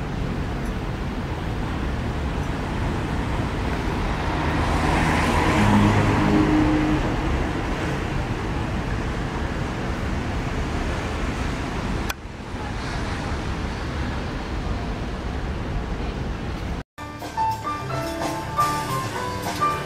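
Street traffic by the harbour: a steady noise of road vehicles, with one vehicle growing louder and passing about five to six seconds in. The sound cuts abruptly about twelve seconds in to more traffic noise. About seventeen seconds in it gives way to background music of short pitched notes over percussion.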